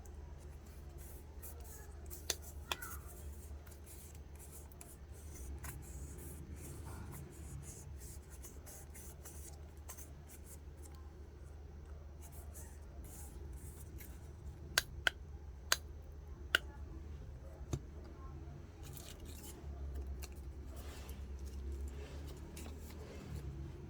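A few sharp clicks or snips over a steady low hum: two early, then a quick cluster of four about two-thirds of the way through and one more shortly after.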